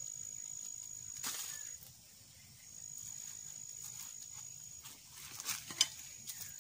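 A machete scraping and cutting at an ear of fresh corn, with a few sharp clicks, the sharpest about six seconds in. Behind it an insect keeps up a thin high-pitched trill that stops for a moment about two seconds in and again near five seconds.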